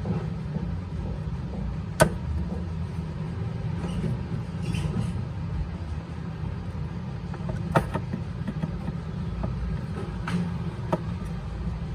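Steady low rumble with a few sharp clicks, the loudest about two seconds in and again near eight seconds, with fainter ones near the end.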